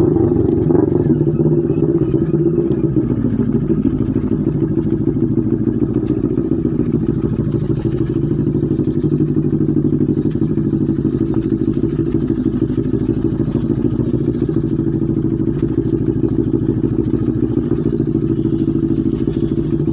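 Motorcycle engine heard from the rider's seat, running at low, steady revs. Its pitch wavers a little in the first few seconds, then holds even.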